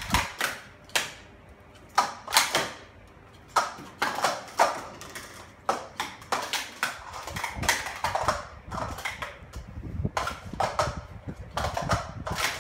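Plastic sport-stacking cups being stacked up and down fast on a stacking mat: runs of quick plastic clacks and taps, with short pauses between runs.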